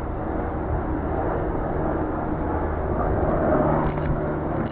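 Steady motor drone with a low hum, running evenly without speech, then cutting off suddenly at the end.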